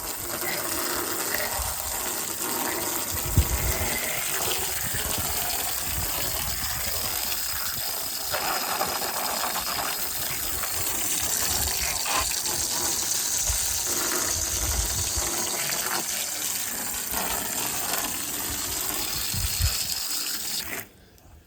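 Soft-wash sprayer running steadily, a pump-fed hose jetting a 6% chlorine solution onto a surface with a constant hissing gush. It cuts off suddenly near the end.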